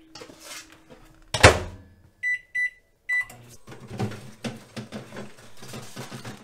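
A microwave door is shut with a loud bang, then the keypad gives three short beeps as the heating time is set. After that come the knocks and rustling of a small freezer being opened and a frozen food box being handled.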